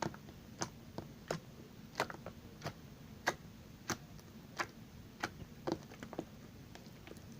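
Jiggly borax slime being squeezed and poked by hand, giving short sharp clicks and pops at an uneven pace of roughly one or two a second.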